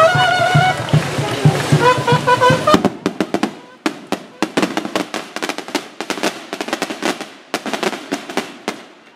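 Music with a steady drum beat for the first few seconds, then, from about three seconds in, a rapid irregular crackle of firecracker pops, a string of firecrackers going off for about six seconds.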